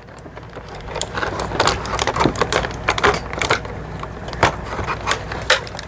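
Plastic action-figure packaging and parts being handled, with irregular crinkles and sharp clicks throughout.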